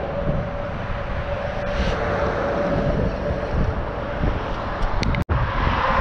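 Steady distant engine drone with a held hum, under wind rumbling on the microphone; the sound drops out for an instant near the end.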